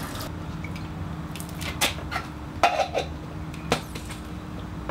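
The end of a pour of water into an upright PVC soaking pipe, then four sharp plastic knocks and clicks as the wet pipes are handled, over a steady low hum.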